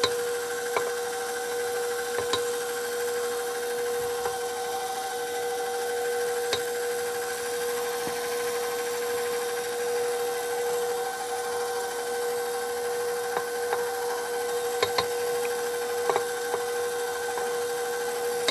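KitchenAid Professional 550 HD stand mixer running steadily with its flat paddle beater, mixing a thickening batter; a steady motor whine with a few light clicks over it.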